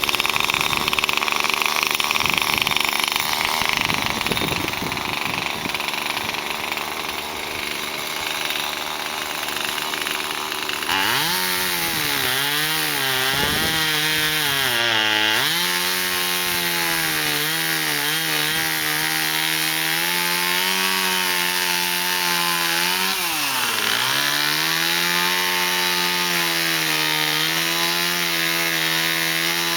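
Chainsaw running at high revs while cutting through a fallen peppermint tree trunk. Its pitch dips sharply several times as the chain bites into the wood, then recovers and holds steady.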